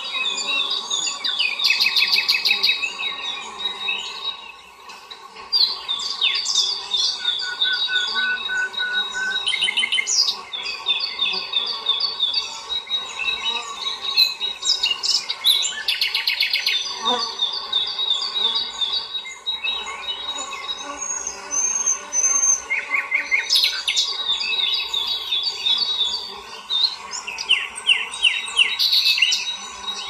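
Wild songbirds chirping and trilling, with many short, rapid high notes and runs of repeated notes coming and going, over a faint steady insect-like drone.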